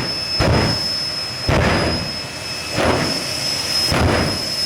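Jet dragster's turbine engine with a steady high whine, broken by four loud rushing surges, about one every second and a bit.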